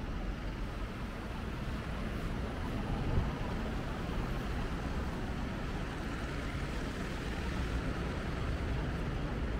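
Steady city street traffic noise, played backwards, with one brief louder bump about three seconds in.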